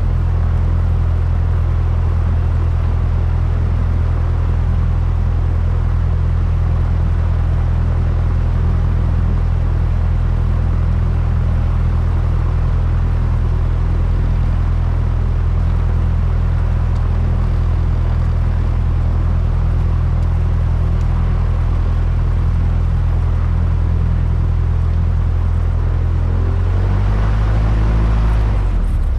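Single-engine light aircraft's piston engine and propeller running steadily, heard from inside the cockpit. Near the end the engine note rises briefly and then drops back to a lower speed.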